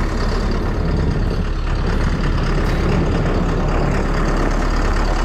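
Loader's engine running steadily with a continuous low rumble while the machine carries a load on its forks.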